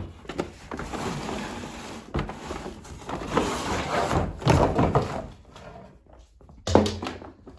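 Unpacking noises: cardboard and packaging scraping and rustling with a sharp knock at the start and heavier thumps near the end, as the vacuum cleaner's main unit is lifted out of its box and set down.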